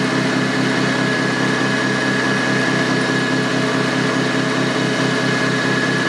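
Deckel G1L engraving machine milling a steel bar under power feed, a 12 mm ISCAR roughing end mill cutting at 1000 RPM. The machine runs steadily, with a fast, even pulsing underneath and a thin high whine over it.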